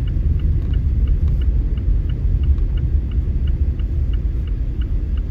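Steady low road and engine rumble inside a car's cabin, with an evenly paced ticking of about two to three clicks a second, typical of a turn-signal relay.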